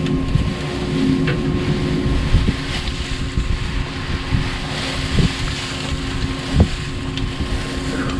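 Steady low engine hum, typical of a tractor idling, with wind rumbling on the microphone and a few light knocks about five and six and a half seconds in.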